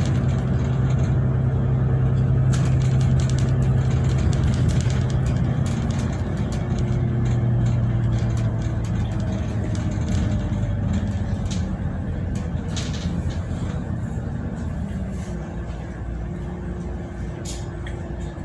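A bus engine and drivetrain running while the bus is moving, heard from inside the cabin. A steady low drone shifts in pitch a few times, and short rattles and clicks are scattered through it.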